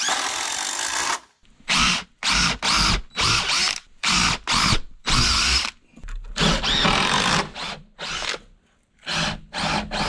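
DeWalt cordless drills driving screws into pressure-treated lumber: one longer run in the first second, then a string of short trigger bursts with brief pauses between them, the motor pitch rising in each burst.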